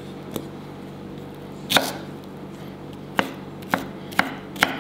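Kitchen knife dicing pineapple flesh into cubes, the blade striking the chopping board: one strike a little under two seconds in, then a steady run of strikes about two a second from about three seconds in.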